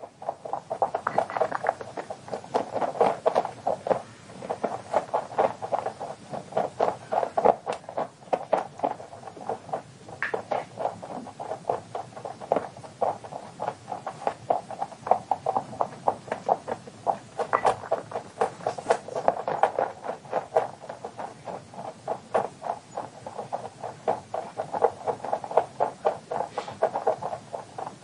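A rabbit digging in a glass tank of sand, its front paws scraping the sand in a fast, continuous run of scratching strokes.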